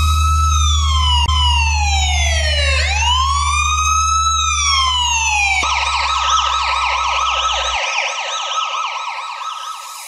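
Police car siren in a slow wail that falls, rises and falls again, then switches about halfway through to a fast yelp that fades toward the end. A low steady hum lies beneath it and stops about eight seconds in.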